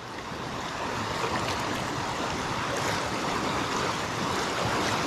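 Steady rush of river water spilling over a low-head dam, growing slightly louder as it nears.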